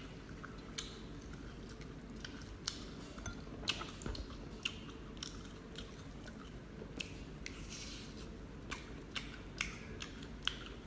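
Someone eating king crab: irregular short clicks and ticks of chewing and of crab shell and utensils being handled, a few a second, over a faint steady low hum.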